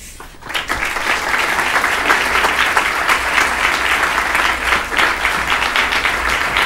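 Audience applause that breaks out about half a second in, at the close of a recited poem, and keeps up dense and even.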